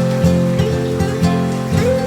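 Gentle instrumental background music led by acoustic guitar, plucked notes sounding several times a second over held chords.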